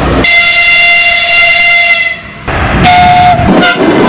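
Train horn sounding over the rumble of a moving train: one long steady blast of about two seconds, then after a short pause two shorter blasts.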